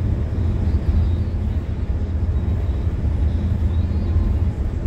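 City bus driving, heard from inside the driver's cab: a steady low rumble of engine and road noise.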